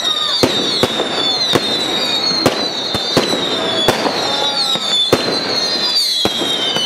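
Firework display: aerial shells bursting in about ten sharp, irregular bangs over a wavering high whistle.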